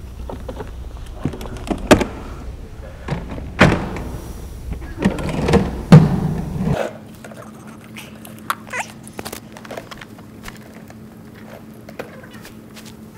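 Gear being handled: several sharp thunks and knocks over a low rumble, the loudest about six seconds in. About seven seconds in the rumble stops abruptly, leaving a faint steady hum and a few small clicks.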